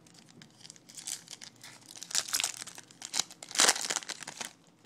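Foil wrapper of a baseball card pack being torn open and crinkled by hand, a run of irregular crackling rustles that is loudest about three-quarters of the way through.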